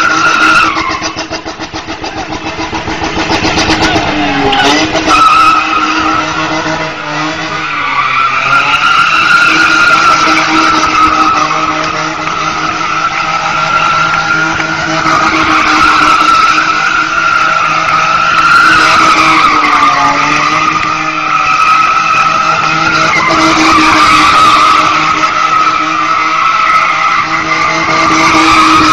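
Car tyres squealing continuously as a convertible spins donuts, the squeal wavering in pitch and dropping away briefly a few times, with the engine running hard underneath.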